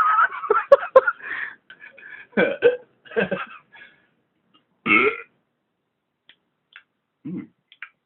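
A man burping and hiccupping. A drawn-out wavering burp comes first, then short separate bursts a second or two apart, the last one fainter.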